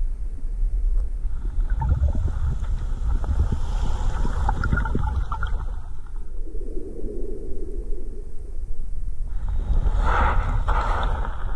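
Muffled water noise around a camera held in shallow water: a heavy low rumble with gurgling and scattered crackles, surging louder near the end.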